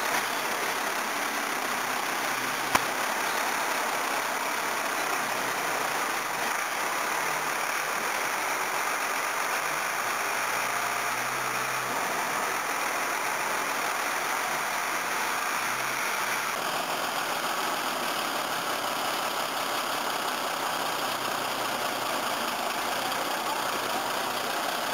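Farm tractor's diesel engine running steadily, with a single sharp click about three seconds in; the sound changes abruptly about two-thirds of the way through.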